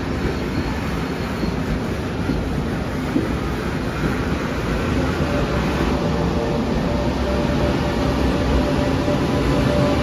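Taroko Express TEMU1000 electric tilting train pulling out of the station, its running noise building slightly, with a steady tone coming in about halfway through.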